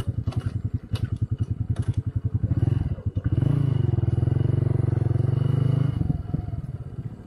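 Motorcycle engine running under way with a pulsing note. It revs up about three seconds in, holds there, then eases off near the end.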